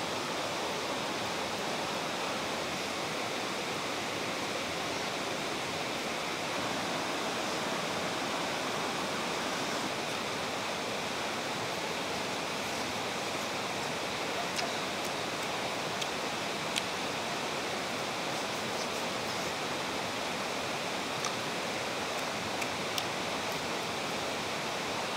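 Steady rushing of flowing water, with a few faint short clicks now and then.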